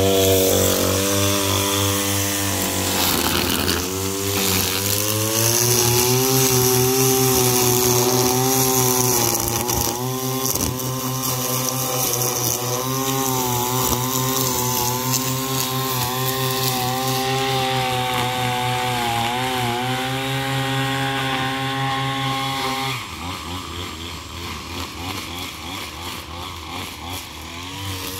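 Echo two-stroke string trimmer running at high throttle while cutting grass along a creek bank, its engine pitch dipping and recovering as the line bites into the growth. About 23 seconds in it eases off and runs quieter for the last few seconds.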